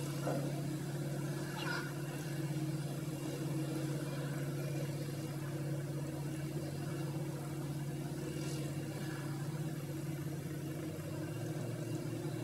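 Wheel loader's diesel engine running steadily at a constant pitch.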